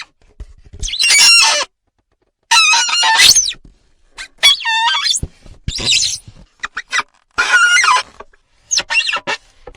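Loud bird calls, about six in a row, each under a second long and bending in pitch, with short gaps between them.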